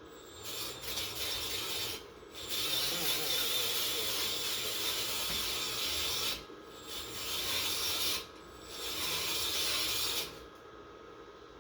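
Welding arc running in four bursts of about one to four seconds each, every burst starting and stopping abruptly.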